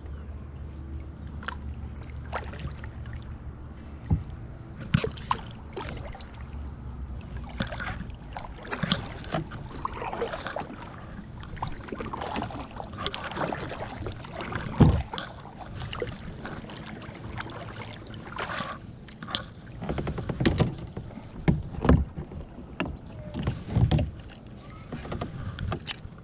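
Kayak paddling: the paddle blades dipping and splashing in the water in irregular strokes, with several sharp knocks, the loudest about halfway through.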